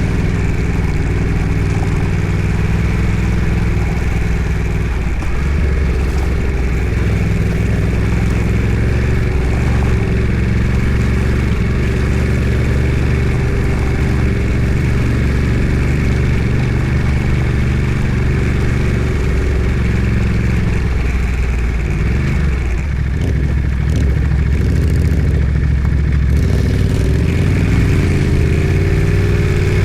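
Off-road vehicle's engine running steadily at low revs, its pitch rising near the end as it picks up revs.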